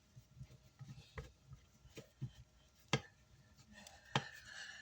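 Faint scattered clicks and taps of screws and a screwdriver being worked on a car amplifier's chassis during reassembly, with one sharper click about three seconds in.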